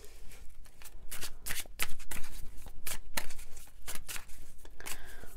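Tarot cards being shuffled by hand: a dense, irregular run of short card clicks and flicks.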